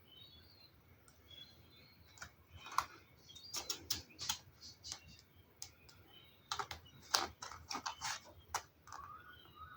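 Faint, irregular clicks and crinkles of a paper instruction leaflet being handled and turned over while it is read.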